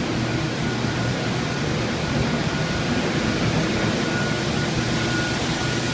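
Water-damage drying equipment, air movers and dehumidifiers, running together: a steady rush of blowing air with a thin steady whine and a low hum.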